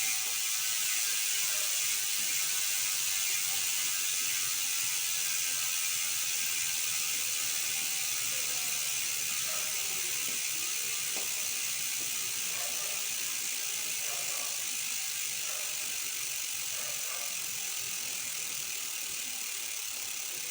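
Speedone Torpedo 8-pawl rear hub freewheeling: the pawls make a steady, high ratcheting buzz as the wheel spins, slowly fading as the wheel slows.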